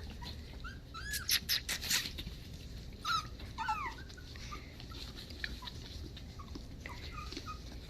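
Havanese puppies giving several short, high-pitched squeaks and whimpers, most of them in the first half, with a few light clicks.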